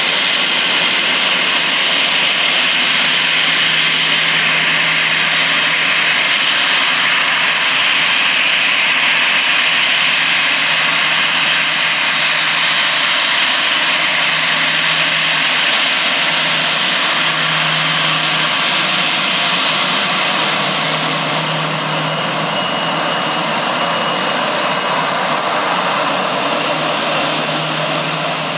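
Airbus A321's twin turbofan jet engines running at low taxi power as the airliner rolls past: a steady rushing noise with a thin high whine on top. It fades a little near the end as the aircraft moves away.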